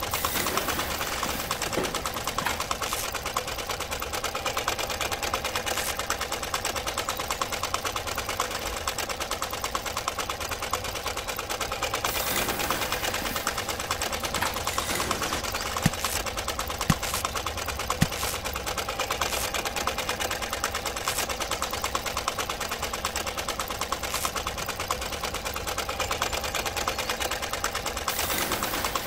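Small motor-driven miniature grinder running steadily with a fast, even chatter as it grinds dried red chili into flakes. Three sharp clicks come about a second apart near the middle.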